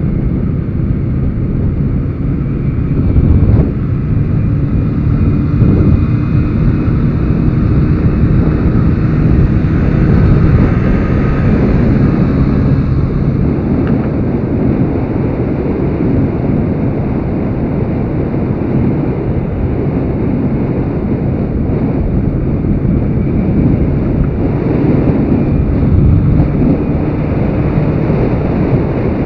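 Mondial 50 Revival's small 50 cc engine running steadily at riding speed, mixed with loud wind buffeting on the microphone.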